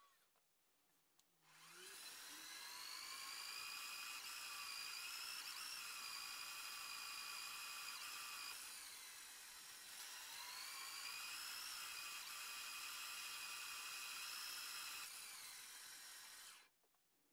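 Small vertical band saw cutting a steel part, running with a high steady whine. The whine starts with a short rise about one and a half seconds in, dips and recovers in pitch around the middle, and stops suddenly near the end.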